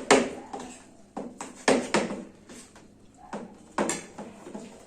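People eating rice pudding from bowls: an irregular series of sharp clicks and knocks, about a dozen, from spoons and mouth sounds.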